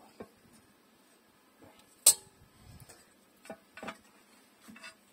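Steel differential cover clinking against the rear axle housing as it is fitted by hand: one sharp metallic clink about two seconds in, with a few lighter taps and clicks after it.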